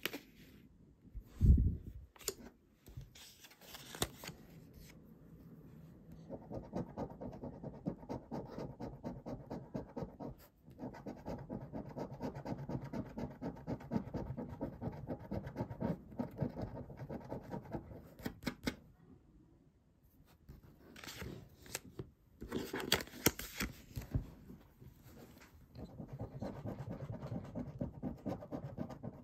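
A coin scratching the coating off paper scratch cards in rapid back-and-forth strokes, in two long runs separated by a pause. A single thump about a second and a half in is the loudest sound, and a few knocks and clicks fall between the runs.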